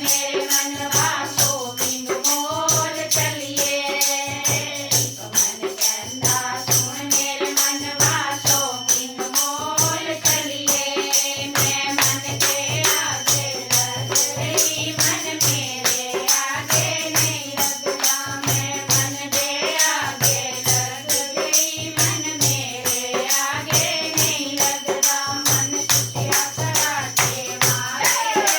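Bhajan kirtan music: a wavering melody line over a steady hand-drum beat, with continuous jingling percussion like a tambourine.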